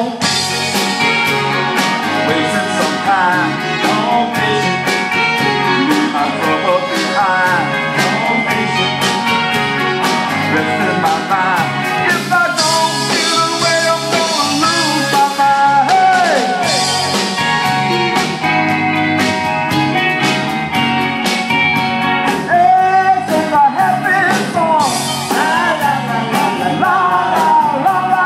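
Men singing a blues song into microphones over instrumental backing with a steady beat.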